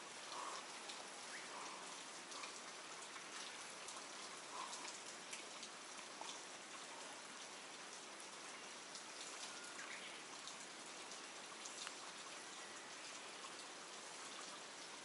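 Light rain falling on the water's surface: a faint steady hiss with scattered drop ticks.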